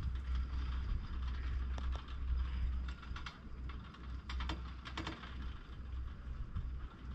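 Chairlift machinery running: the haul rope and chair grips pass over sheaves, giving irregular clicking and rattling, with the clicks thickest in the middle. A steady low rumble runs underneath.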